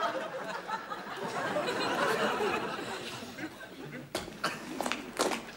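Studio audience laughing for about four seconds; then, about four seconds in, footsteps start clicking on pavement, two or three steps a second.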